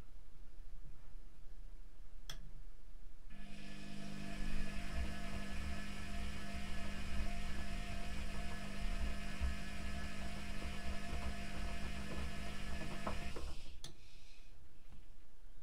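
Privileg Classic 30612 front-loading washing machine in its wash phase. A click, and about a second later the drum motor starts and hums steadily for about ten seconds as it tumbles the wet, sudsy laundry, then stops with another click.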